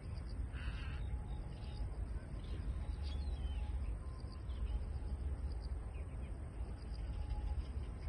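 Steady low wind rumble on the microphone of an open riverside mudflat, with one short harsh bird call, caw-like, about half a second in and faint high bird chirps scattered through.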